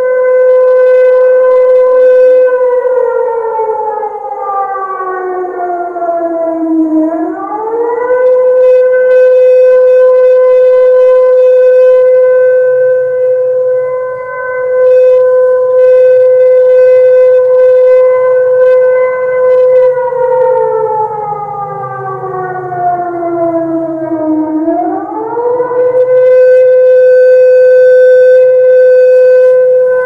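Loud Ramadan siren sounding the signal to break the fast (buka puasa). One wailing tone holds a steady pitch, twice slides slowly down over several seconds (about three seconds in and again about twenty seconds in), and each time swoops quickly back up to the steady tone.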